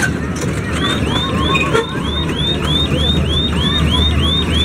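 Electronic alarm-like chirp repeating rapidly, about four rising chirps a second, starting about a second in, over a steady low fairground rumble.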